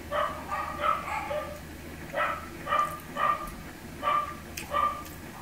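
Dogs barking: about ten short, sharp barks in quick runs of two or three.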